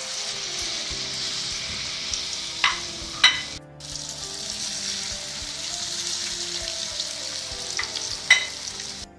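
Batter-coated potato slices frying in hot oil in an electric pan: a steady sizzling hiss. Three sharp metal clicks come from the fork against the pan. The hiss drops out briefly a few seconds in.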